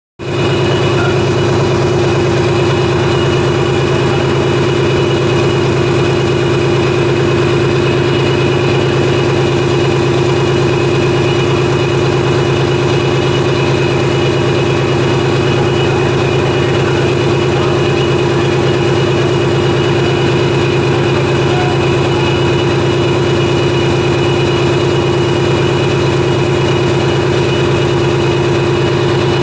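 Ship's main engine, a large inline multi-cylinder marine diesel, running loud and steady at a constant speed during an engine test.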